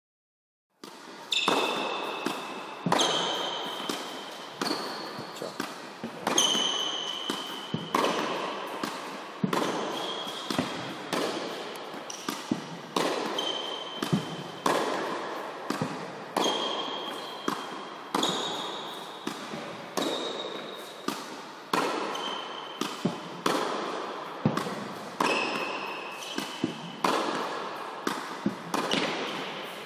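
Tennis ball struck by rackets in a quick volley exchange at the net, a sharp hit about once a second. Each hit has a short high ping and an echo off the hall. The hits start about a second in.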